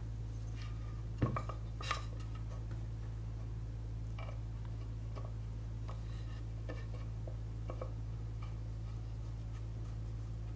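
Small wooden pieces and a metal screw being handled and set against a wooden board: scattered light knocks and clicks, the loudest two knocks between one and two seconds in, over a steady low hum.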